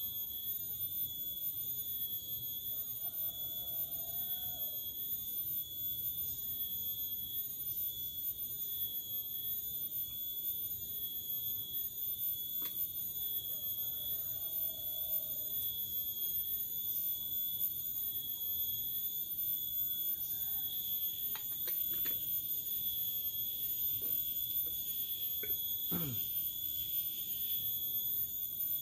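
Steady high-pitched insect buzzing, a continuous chorus that never breaks, with a few light clicks about three quarters of the way in.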